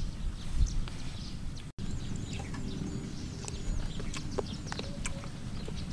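Outdoor ambience of birds calling with short high chirps, over a steady low rumble and a few light clicks. The sound drops out for an instant about two seconds in.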